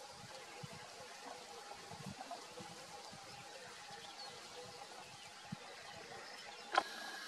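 Faint outdoor ambience: a steady hiss with a faint steady hum, low rumbles here and there, and one sharp click near the end.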